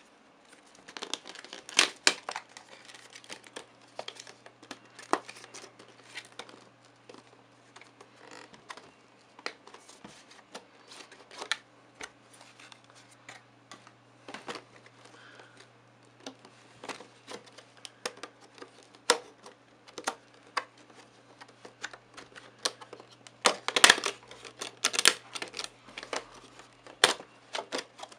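Stiff clear plastic retail box and its cardboard sleeve being handled and opened: irregular crinkling and clicking of the plastic, busiest near the start and again a few seconds before the end.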